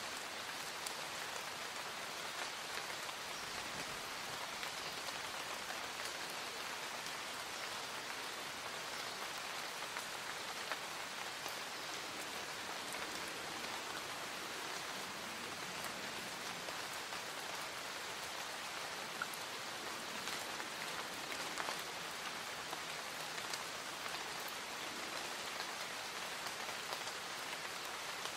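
Light rain falling in woodland: a steady, even hiss with many scattered drop ticks.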